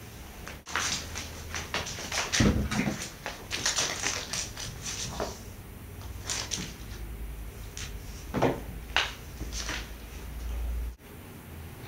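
A cat at play: irregular rustling, scrabbling and knocking, with two heavier thumps, about two and a half and eight and a half seconds in.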